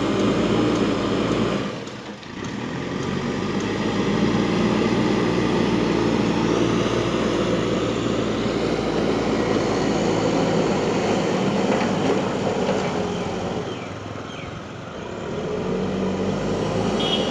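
Vehicle engine running steadily, easing off briefly about two seconds in and again near the end.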